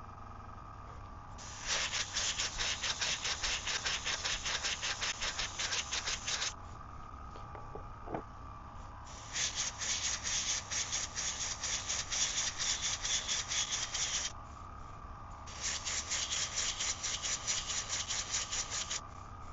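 Airbrush spraying fluorescent pink paint in three bursts of a few seconds each, a rapidly pulsing hiss, with a steady low hum underneath.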